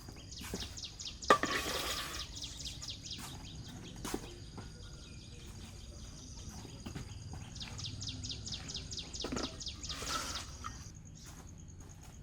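Outdoor birdsong: rapid runs of high chirps, about seven a second, in two long bouts, over a steady high insect-like tone. About a second in there is a sharp knock followed by a short rush of noise, and another rush of noise comes near the end.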